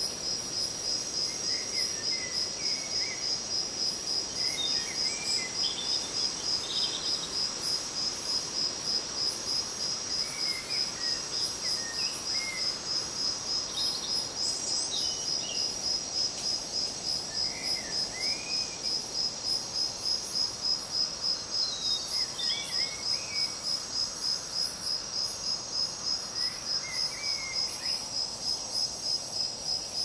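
Crickets chirping in a steady, evenly pulsing high trill, about three pulses a second, with short bird chirps breaking in every few seconds.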